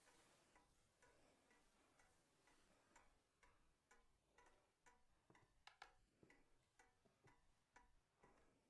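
Faint clock ticking, about two ticks a second.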